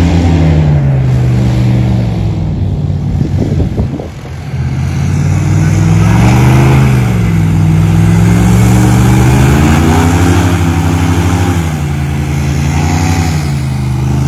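Airboat's engine and propeller running loud, the pitch rising and falling several times as it runs across the grass. The sound dips and breaks up briefly about four seconds in.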